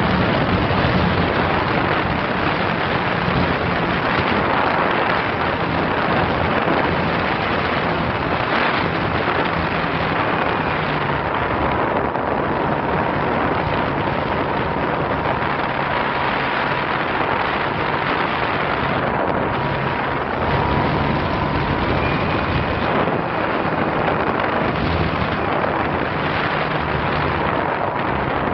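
Onboard sound of a radio-controlled model biplane at full throttle: its motor and propeller run steadily, largely buried under a loud, even rush of wind and propeller wash on the onboard camera's microphone.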